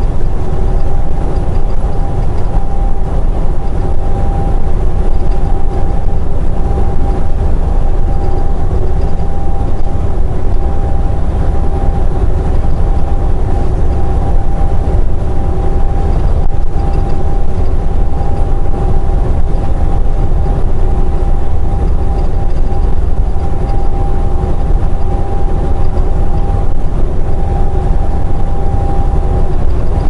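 Semi truck cruising at highway speed, heard inside the cab: the diesel engine and road noise make a steady low rumble, with a faint steady whine above it.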